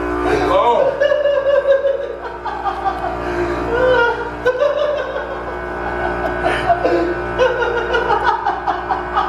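Background music with a steady held drone, with people snickering and laughing under it.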